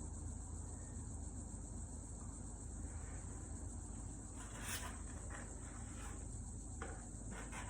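Steady, high-pitched insect trilling in the background, with a few short scrapes about halfway through.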